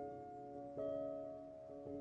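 Quiet instrumental background music: held chords, with a new chord struck about a second in and a softer change near the end.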